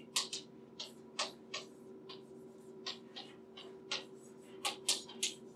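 Chalk writing on a blackboard: a string of short, irregular taps and clicks as the chalk strikes and leaves the board, over a steady faint hum.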